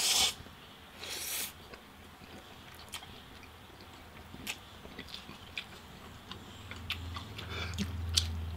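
Two people eating instant ramen noodles: a loud slurp right at the start and another about a second in, then scattered small clicks of chewing.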